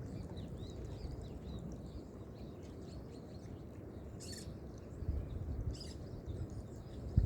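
Small birds chirping and twittering over a steady low rumble, with two sharper, louder calls around the middle and the rumble turning gusty near the end.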